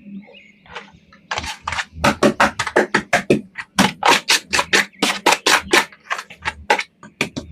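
A rapid run of sharp clicks or knocks, about four to five a second, starting just over a second in and stopping near the end.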